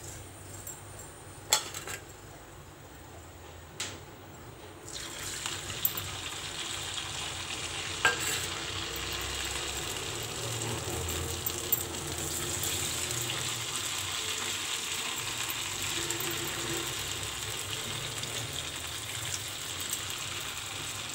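A chuda (flattened rice) and potato mixture goes into hot oil in a kadai about five seconds in, and the oil bursts into a steady sizzle as it deep-fries. A few sharp clicks of a utensil come before and during the frying.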